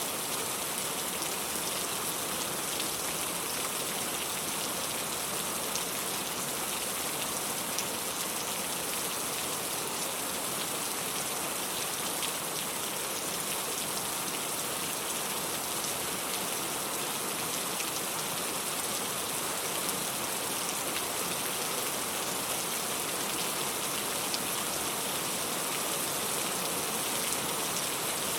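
Steady rain, an even hiss with fine scattered ticks of drops.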